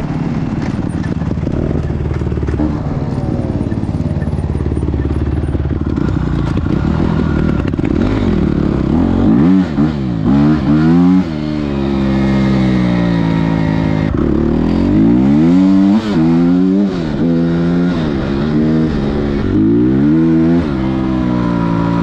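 Off-road motorcycle engine running under the rider, steady at first, then revving up and dropping back again and again from about eight seconds in as the bike accelerates and eases off.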